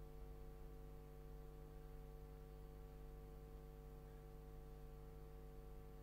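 Near silence: a faint steady hum of room tone.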